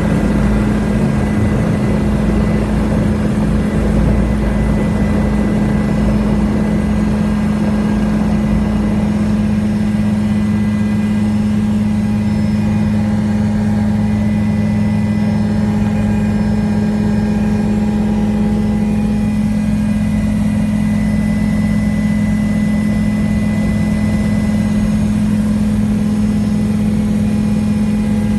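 Helicopter cabin noise during take-off: the turbine and rotor run loud and steady with a deep constant hum. A heavy low rumble is strongest for the first several seconds and eases as the helicopter climbs away.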